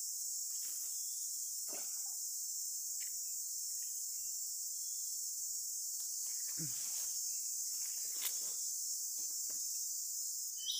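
Steady, high-pitched chorus of insects droning without a break, with a few faint soft knocks and rustles close by.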